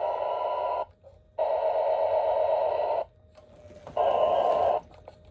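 O scale model locomotive's onboard sound system sounding its horn in separate blasts: one ending about a second in, a long blast, a short one, and another starting near the end, in the long-long-short-long pattern of a grade-crossing signal.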